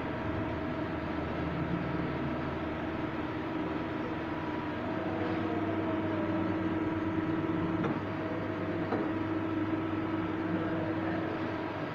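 Star CNC lathe running: a steady machine hum and whine of motors and spindle, with a couple of faint clicks in the second half.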